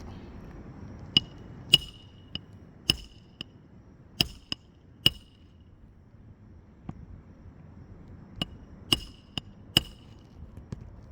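Hammer driving roofing nails while a replacement asphalt shingle is fastened: sharp, ringing strikes in two runs of several blows each, with a pause of a few seconds between them.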